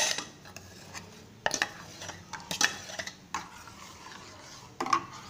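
Metal spoon stirring milk in a stainless steel saucepan, with several sharp metallic clinks spread through it.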